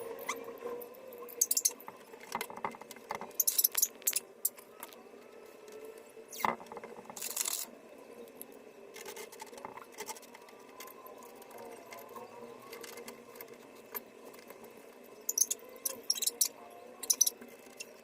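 Scattered metallic clicks and clinks of deadbolt lock parts and screws being handled and fitted by hand, over a faint steady hum.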